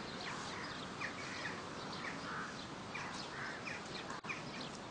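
Small birds chirping: many short, falling chirps, several a second, over a faint steady background hiss. The sound cuts out for an instant about four seconds in.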